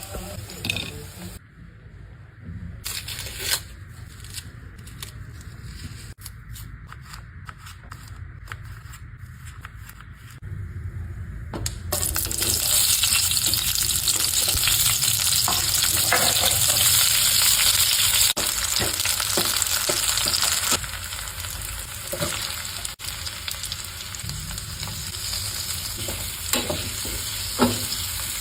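Food frying in hot oil with a sizzle and occasional knocks of stirring. The sizzle is fairly quiet for about the first ten seconds, turns much louder and hissier around twelve seconds in, and eases back down around twenty-one seconds.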